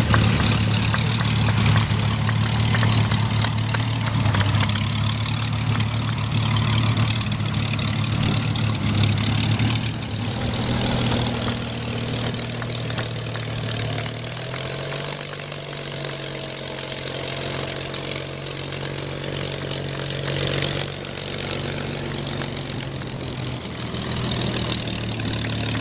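Supermarine Spitfires' V12 piston engines running at a low, uneven idle as the fighters taxi past. About halfway through, the engine note steps up slightly in pitch.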